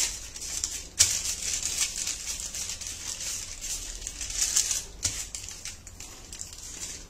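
Wooden rolling pin rolled hard back and forth over butter paper laid on a wooden board, pressing out a hot sesame-and-jaggery slab. The paper rustles and crinkles with each stroke, with fresh strokes starting about a second in and again about five seconds in.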